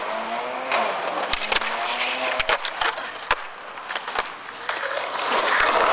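Skateboard wheels rolling over smooth concrete, with several sharp clacks of the board in the first half and the rolling growing louder near the end.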